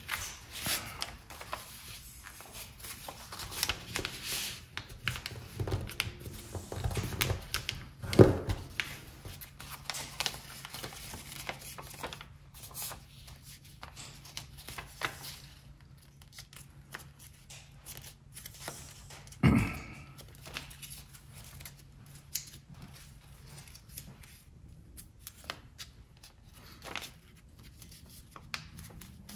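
A sheet of paper being folded by hand on a tabletop: rustling and sliding, with quick scraping strokes as the folds are creased down. Two louder knocks stand out, one about eight seconds in and one near twenty.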